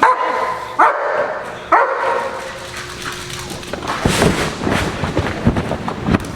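A working dog barks three times in quick succession, each bark sliding in pitch. About four seconds in, a stretch of scuffling and thumping noise follows.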